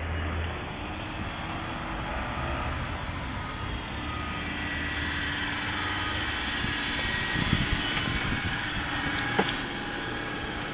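Small engine of a 1994 Suzuki 4x4 mini-truck running as the truck drives up and pulls alongside, its engine note growing louder from about halfway in as it comes near. A couple of short clicks near the end.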